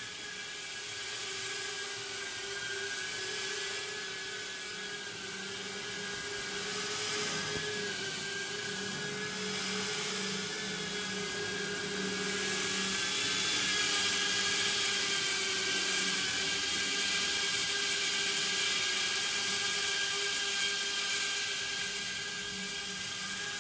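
Mirarobot S60 micro FPV quadcopter (tiny whoop) in flight, its small motors and propellers giving a steady high buzzing whine whose pitch wavers slightly. It grows louder about halfway through as the quad comes close.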